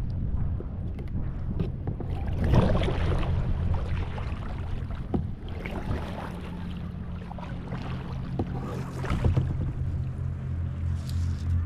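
Kayak paddle dipping and splashing in the sea, a few strokes spaced a few seconds apart.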